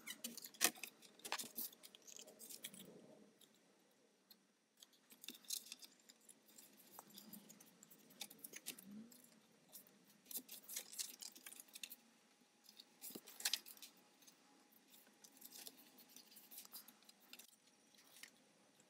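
Faint handling of stiff cardstock against a cutting mat and plastic scoring board: scattered light clicks, taps and paper rustles, some in quick clusters.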